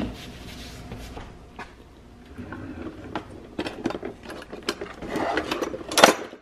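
Metal kitchen utensils clinking and clattering as a hand rummages through a crowded utensil drawer, with irregular clicks and a louder clack near the end.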